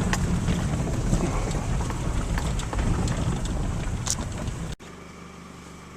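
A vehicle running, with a loud low rumble and many small rattles and clicks. About five seconds in it cuts off abruptly to a much quieter steady hum.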